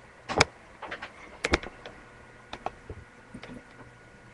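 A few irregular light knocks and clicks, spaced about half a second to a second apart, over a faint steady hum.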